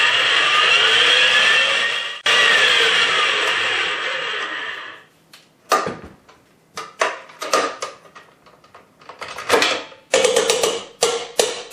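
Electric stand mixer running, beating a cream cheese filling in a steel bowl, its motor pitch rising and falling. It stops about five seconds in and is followed by a string of clacks and knocks as the mixer is handled.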